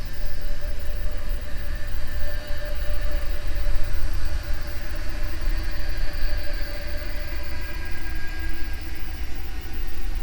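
Haunted-house ambience: a continuous deep rumble with several sustained, eerie whining tones layered over it, slowly fading in and out and drifting in pitch.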